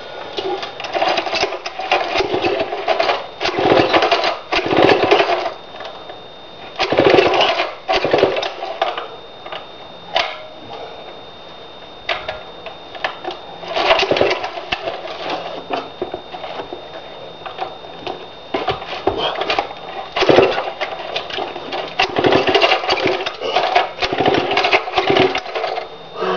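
Antique 87cc Pioneer IEL HC two-stroke chainsaw being pull-started over and over. Each pull turns the engine over in a short burst of about a second, with gaps between, and it never settles into a steady run.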